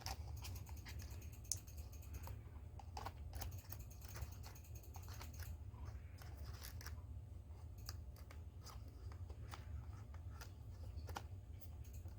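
Faint, scattered clicks and scratches of plastic laptop screen parts being handled and pressed into place, over a low steady hum.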